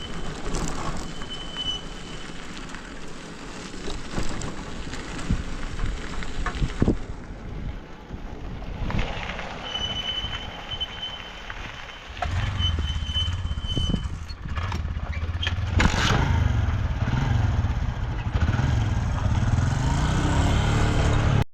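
A motor vehicle's engine running under a constant rushing noise, its low hum growing louder and steadier from about twelve seconds in and rising slightly near the end.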